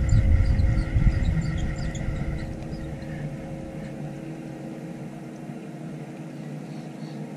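Boat engine running steadily, a low rumble with a steady hum over it, the rumble dying away over the first few seconds.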